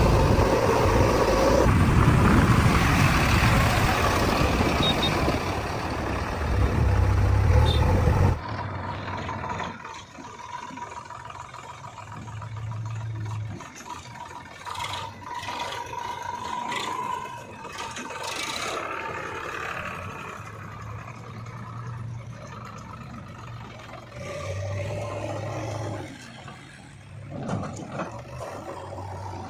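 Diesel engines of a JCB 3DX backhoe loader and farm tractors running while loading mud. The sound is loud at first, then drops suddenly about eight seconds in to a quieter engine sound that swells and fades.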